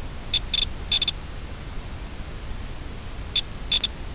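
Short, high electronic beeps, all at the same pitch: about seven of them in small irregular clusters of singles and quick pairs, in the first second and again near the end, over a steady low hiss and rumble.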